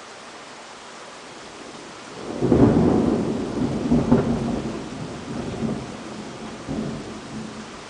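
Steady rain hiss, then about two and a half seconds in a loud thunderclap that rumbles and rolls on in uneven waves, fading over the next few seconds.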